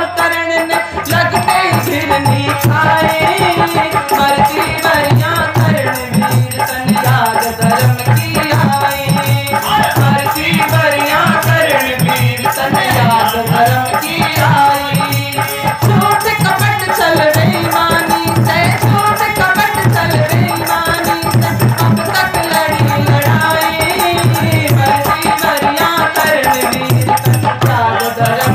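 A woman singing a Hindi devotional bhajan to harmonium and dholak, the drum keeping a steady rhythm under a rattling percussion.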